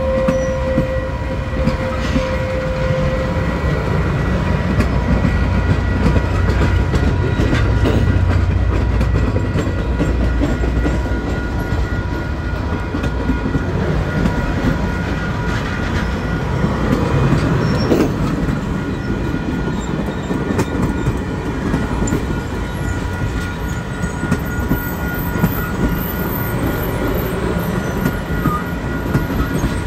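Union Pacific heritage passenger cars rolling past: a steady rumble of wheels on rail with scattered clicks over the rail joints and a thin, steady high whine. A held tone sounds in the first few seconds and then stops.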